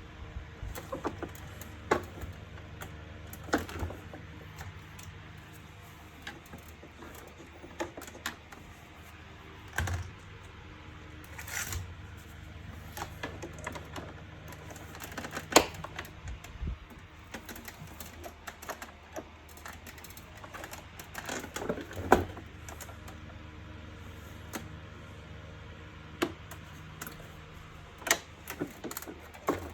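Irregular clicking and knocking of hard plastic vacuum-cleaner housing parts being handled and fitted together by hand, with a few sharper knocks.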